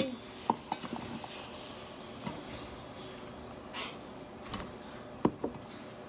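Scattered light taps and clicks over a steady low hiss of room noise, with one sharper knock about five seconds in.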